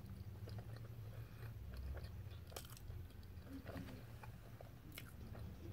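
Close-up chewing of a mouthful of multigrain toast with avocado and fried egg: faint wet mouth clicks and smacks, a sharper click about halfway through and another near the end, over a steady low hum.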